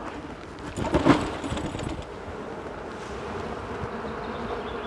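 Honeybee swarm buzzing steadily on a hive-entrance ramp after being shaken out, with a louder knock and rustle about a second in.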